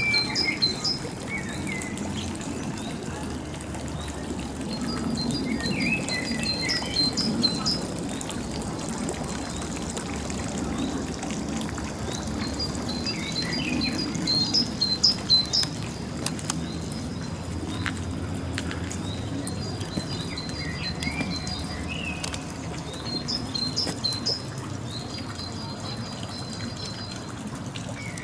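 A songbird singing short, quick twittering phrases, repeated every few seconds, over a steady low background rumble.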